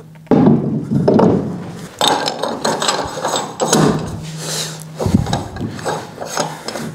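Clicking and knocking as a BBS E28 magnesium wheel goes onto a Porsche 964's center-lock rear hub and its center-lock nut is run up and tightened, irregular hand-tool work rather than a steady machine.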